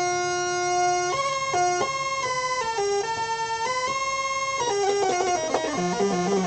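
Realistic MG-1 (Moog) analog synthesizer playing two sawtooth oscillators together. It holds one buzzy note for about a second, then a quick series of keyboard notes stepping up and down, and ends with a descending run.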